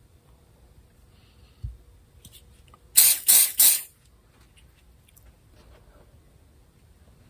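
Three quick hissing sprays in a row, like a pump spray bottle worked three times over the glued crack, after a single dull knock.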